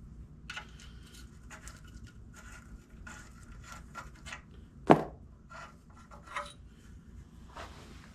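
Small metal parts being handled and fitted by hand: a run of light clicks and scrapes, with one sharp knock about five seconds in.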